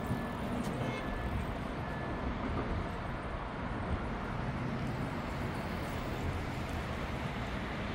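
Steady city street ambience: the low, even rumble of road traffic.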